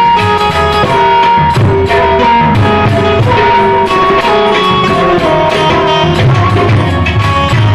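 Instrumental interlude of a live Gujarati bhajan: a melody instrument plays a run of held, stepped notes over a steady beat of hand drums.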